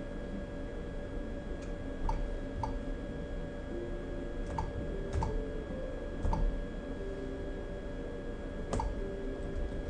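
Ultrasound machine control-panel buttons clicking, about six single clicks spaced unevenly, as the scan is switched from 2D into 3D/4D mode. A steady background hum runs under them.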